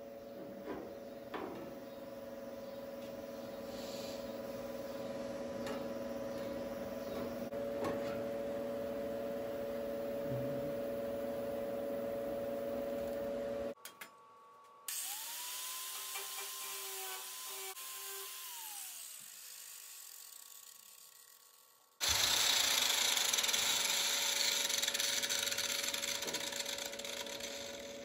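Power tool trimming a sheet-metal patch panel. First comes a steady hum with a held tone. It breaks off abruptly about 14 seconds in, and then a tool spins up, runs and winds down. A louder, hissy stretch of cutting or grinding follows near the end.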